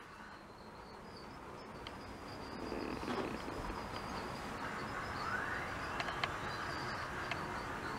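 HO-scale model trains running on the layout: a steady whirring rumble that grows louder a couple of seconds in. A rising whine sounds around the middle, and there are a few light clicks near the end.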